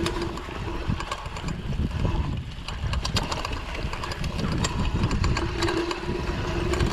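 Mountain bike riding over a rough trail: tyre rumble, rattling and clicking from the bike, and wind on the microphone, with a steady whine near the start and again in the second half.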